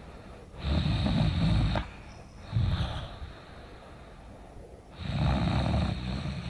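A sleeping woman snoring loudly with her mouth open: a long snore about half a second in, a shorter one near three seconds, and another long one starting about five seconds in.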